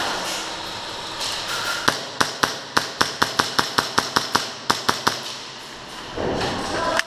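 Airsoft gun firing a rapid string of about eighteen sharp shots over about three seconds, unevenly spaced. A rustle of movement follows near the end.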